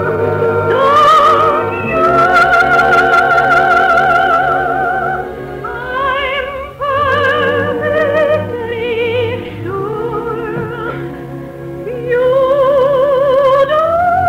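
Operatic-style music from a 1950s radio musical: a high melody held on long notes with wide vibrato over orchestral accompaniment, growing louder again about twelve seconds in.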